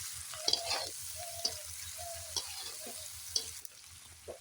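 Onions sizzling as they fry in hot oil in a kadai, stirred with a series of short scraping strokes against the pan. The sizzle drops quieter about three and a half seconds in.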